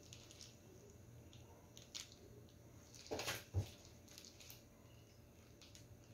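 Faint handling noises as a plastic piping bag of whipped cream is picked up: a few small clicks, then a short rustle ending in a soft thump a little past halfway, over a low steady hum.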